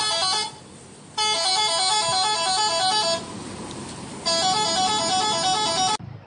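Indonesian bus 'telolet' horn, a multi-tone musical horn playing a short stepped melody in repeated blasts. One blast ends about half a second in, and two more follow with pauses of about a second between them, over a low engine rumble.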